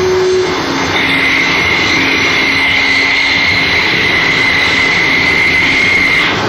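Harsh noise: a loud, dense, unbroken wash with a steady high whine held over it and a lower hum beneath, with no distinct glass-smashing hits standing out.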